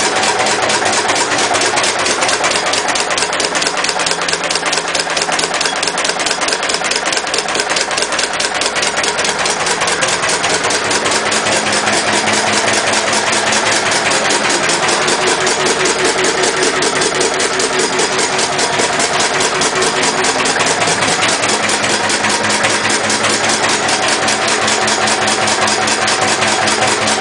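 Lister CS single-cylinder stationary diesel engine running steadily, with a rapid, even clatter.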